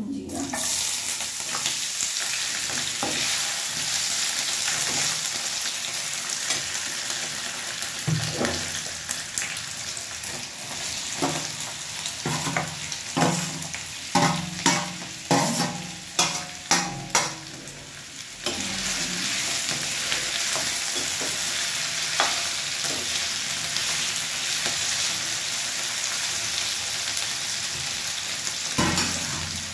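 Raw potato sticks sizzling in hot oil with cumin and dried red chillies in a frying pan as they are spooned in. About halfway through, a quick run of sharp clanks comes from a steel spoon knocking the last pieces out of a steel bowl, and then the frying settles into a steady sizzle.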